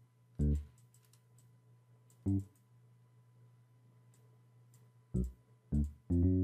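Mouse clicks with short, isolated low bass notes sounding one at a time, about five of them, the last one held a little longer: notes being entered or auditioned in an FL Studio amapiano beat rather than a playing loop.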